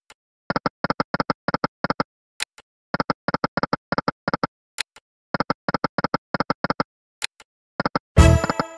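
Online slot machine game sounds: quick runs of short clicky reel-stop tones, one run per spin repeating about every two and a half seconds, with a single sharp click between runs. Near the end comes a louder, brief burst of game sound.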